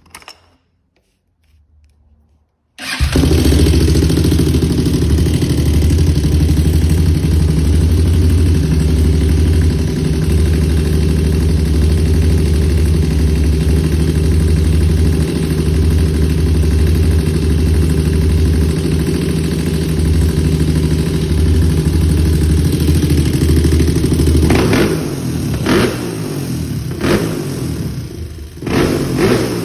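2001 Honda TRX400 ATV's single-cylinder four-stroke engine, its valves freshly adjusted and its OEM carburetor refitted, coming in loud a few seconds in and idling steadily. Near the end it is blipped up in several quick revs.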